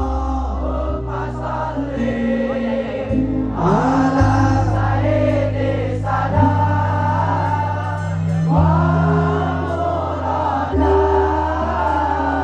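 Male voices singing an Arabic devotional qasidah in chorus over held accompaniment chords that change every couple of seconds. The singing swells into long, bending phrases about four seconds in and again past the middle.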